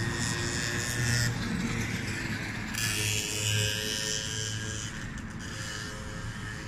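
Road traffic going by: a steady rushing hiss with a low rumble, swelling twice as cars pass, under faint music.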